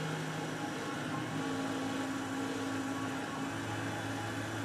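Tormach 8L CNC lathe running through a profiling cut on an aluminum part, dry without coolant: a steady machine hum whose pitch shifts about a second and a half in and again near the end.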